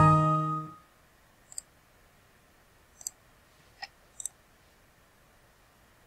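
The dying tail of a Windows system alert chime, sounding as a 'file already exists, replace it?' warning dialog pops up. Then a few soft mouse clicks about a second and a half, three and four seconds in.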